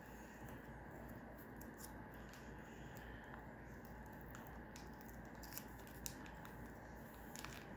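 Faint, scattered taps and scratches of a pen crossing out letters on a scratch-off lottery ticket, over a steady low hum.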